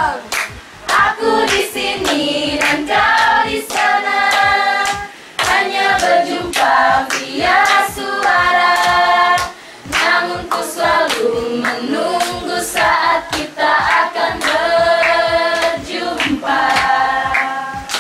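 A group of mostly young women singing together without instruments, clapping their hands along to the song. The singing goes in phrases with held notes and brief pauses between them.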